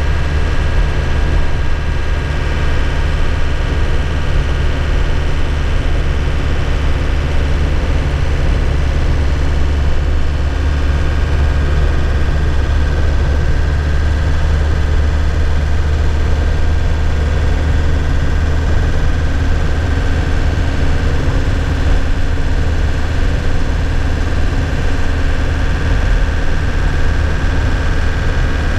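2001 Nissan Cabstar truck's diesel engine running steadily, heard from inside the cab, with a steady low hum and a thin whine that rises slightly about halfway through.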